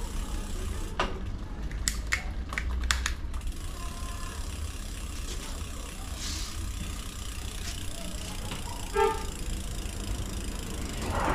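Low steady rumble of street traffic with a handful of sharp clicks in the first few seconds, then a brief car horn toot about nine seconds in.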